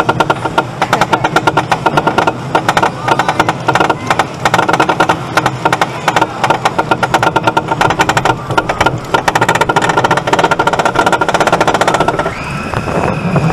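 Wild mouse roller coaster car climbing the chain lift hill: a rapid, continuous clatter of the lift chain and anti-rollback ratchet. About twelve seconds in, the car reaches the top and the clatter stops, giving way to a smoother rolling sound.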